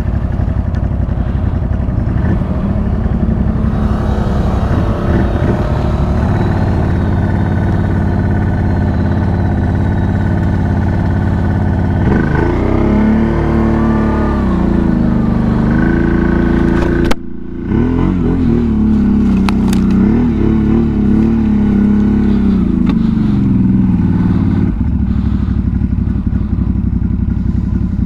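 Big-bore V-twin ATV engines running, with a steady low drone and the throttle opened and eased in long rising and falling surges in the second half. There is a sudden brief break in the sound about two-thirds of the way through.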